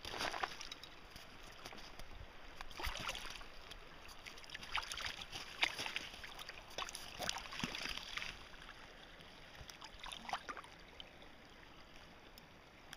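Running creek water with irregular splashes and sloshes as a hooked trout is played and brought in at the surface.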